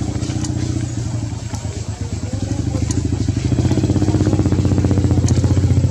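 A small engine running steadily with a rapid pulsing beat, getting louder about three and a half seconds in.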